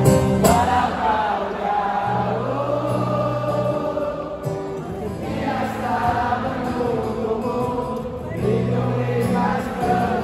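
Live concert music: a large crowd singing along in unison with a singer playing acoustic guitar, over sustained low notes from the sound system.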